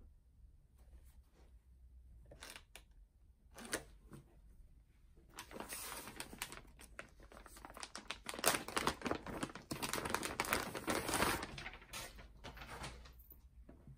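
Clear plastic garment bag crinkling and rustling as a hoodie is handled and pulled out of it. A few short rustles at first, then dense crinkling for several seconds from about five seconds in.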